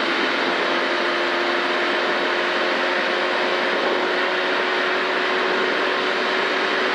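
Rally car at full throttle on a straight, heard from inside the cabin: the engine holds a steady note at constant revs under a steady rush of wind and tyre noise.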